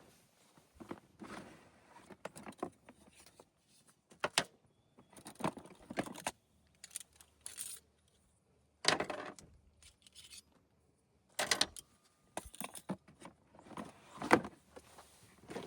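Irregular clicks, clinks and rustles of small objects being handled and set down, with short quiet gaps between them.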